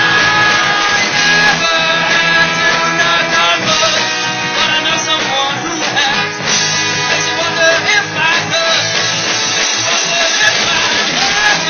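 Live band playing a rock song with guitar and drums, between sung lines.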